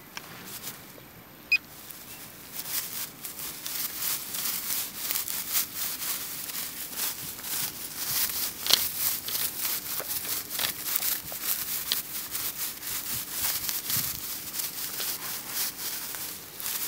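Dry grass and weed stems rustling and crackling as they are brushed and pushed aside, a dense run of small crackles that starts a couple of seconds in. A short high beep about a second and a half in.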